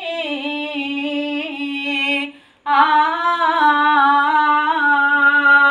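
A woman singing a Sinhala Pattini devotional verse (yahan kavi) solo, drawing out long, steady held notes. She breaks off briefly about halfway through for breath, then holds another long note.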